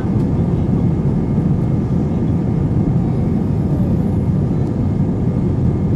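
Airbus A320 jet engines and airframe heard from inside the passenger cabin as the aircraft moves along the runway: a steady, loud, low rumble with a faint whine above it.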